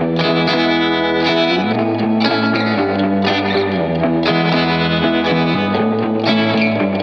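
Background music: guitar-led instrumental with a distorted, effects-laden electric guitar sound, held chords changing every second or two.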